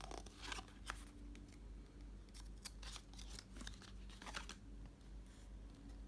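Trading-card starter deck and its packaging being handled: short, crisp clicks, snips and rustles in two bursts, one at the start and a longer one from about two seconds in, over a low steady hum.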